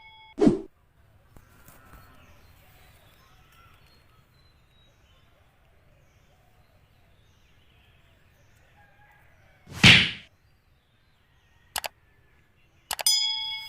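Faint steady background noise, broken by a loud short burst of noise about ten seconds in, a brief click soon after, and a ringing bell-like ding near the end.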